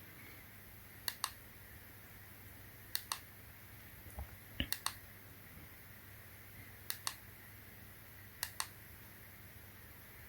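Small plastic push-button on a remote control clicking as it is pressed and released, five times, about every second and a half to two seconds, each press a quick double click, stepping the flood light through its colour modes.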